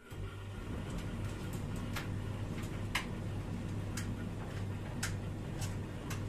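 Siemens iQ300 9 kg tumble dryer starting its cycle: a steady low motor hum sets in, with light ticks about once a second over it.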